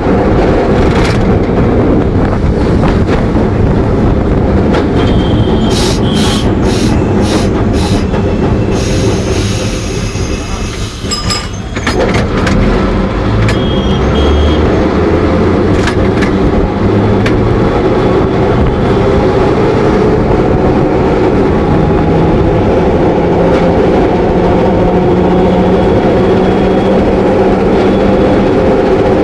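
Electric tram running fast, heard from inside the car: a steady rumble with the body and window grille rattling and the wheels clattering over the track, with sharp clicks now and then. The noise dips briefly about ten seconds in, then picks up again.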